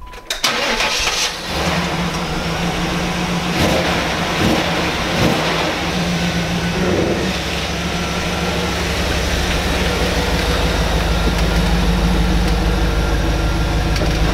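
Pontiac Trans Am's LT1 5.7-litre V8 starting just after the beginning, then running with a steady low exhaust rumble and a few brief rises in engine speed as the car is driven slowly into the garage.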